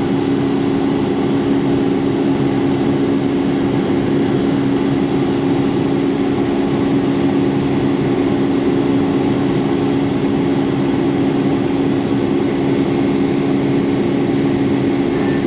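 Boeing 757's Rolls-Royce RB211-535 turbofan heard inside the cabin during the climb after takeoff: a steady roar with a constant low drone.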